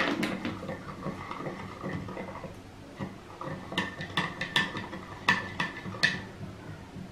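Spoon stirring salt into water in a drinking glass, clinking against the glass with a faint ring. There is one clink at the start, softer stirring after it, then a quick run of clinks from about three and a half to six seconds in.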